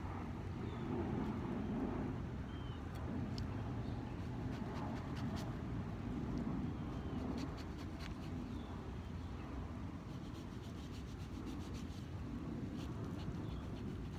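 Knife cutting and scraping through jackfruit flesh and fibres, with scattered small clicks, over a steady low outdoor rumble.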